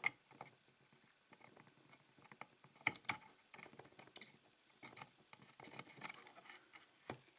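Faint scraping and a few sharp light clicks of a soldering iron tip worked along a model railway rail, smoothing a solder joint flush; two clicks come close together about three seconds in.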